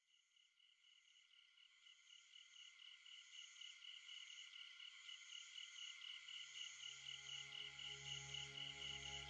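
Soft ambient soundtrack fading in from near silence: a high chirping that pulses about five times a second, joined about six seconds in by a low sustained drone.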